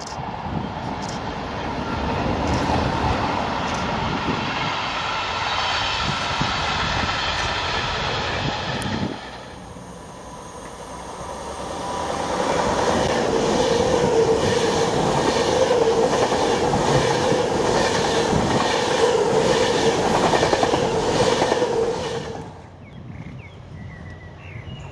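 Freightliner Class 66 diesel locomotives hauling a freight train past, their two-stroke engines running steadily. Then a Class 390 Pendolino electric train passes at speed, louder, with a steady whine and a regular clatter of its wheels on the rails. Near the end it drops to a quieter rumble.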